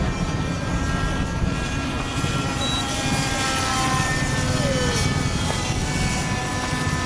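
Raptor RC helicopter in flight: its glow-fuel engine and rotor make a steady whine with several held tones that shift slightly in pitch as it manoeuvres.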